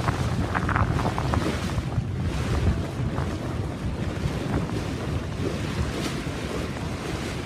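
Wind buffeting the microphone over the rush of water along the hull of an Edel 540 sailboat under sail in choppy seas. The noise holds steady throughout, with a few brief louder washes in the first second.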